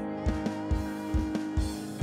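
Live church worship band playing between sung lines: electric guitar and held chords over a kick drum beating steadily about twice a second.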